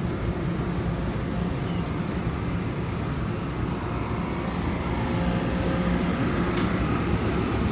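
Metro-North electric multiple-unit train at the platform, its motors and onboard equipment giving a steady low rumble and hum. There is one sharp click about six and a half seconds in.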